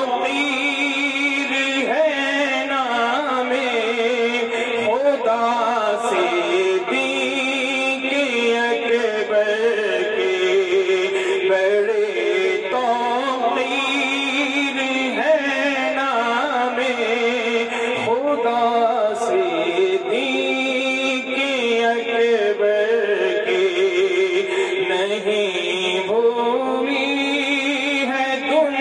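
A man's solo voice singing a manqabat, an Urdu devotional praise poem, into a handheld microphone. He holds long, ornamented notes that waver and glide in pitch with no break.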